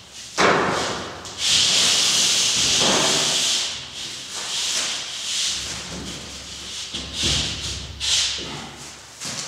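A gypsum board sheet scraping and rubbing as it is dragged off a stack of boards and stood up. There is a knock about half a second in, a long scrape for a couple of seconds, then shorter scrapes and shuffles as the sheet is handled.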